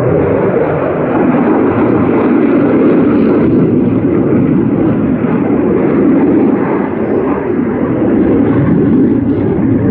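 Military fighter jet's engines, a steady loud rush of jet noise that holds through without a clear rise or fall.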